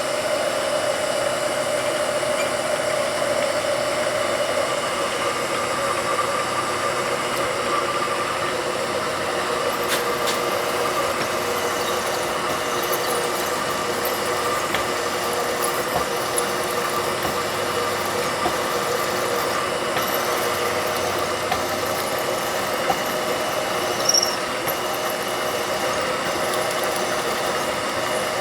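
A CNC knee mill cutting aluminum: the spindle runs steadily while the cutter makes a continuous high-pitched squeal. About five seconds in, the pitch of the squeal steps up.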